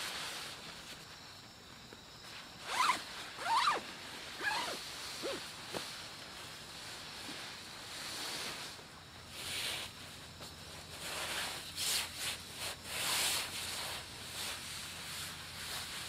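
A zipper pulled in several quick strokes about three seconds in, then nylon sleeping bag and hammock fabric rustling and being handled.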